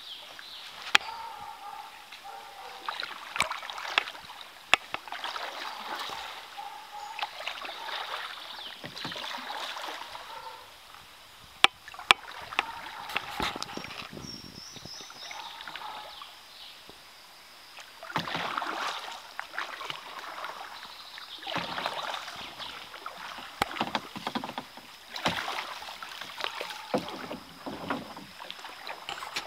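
Kayak paddling on a slow river: water swishing off the paddle blades in swells every few seconds, with a few sharp knocks.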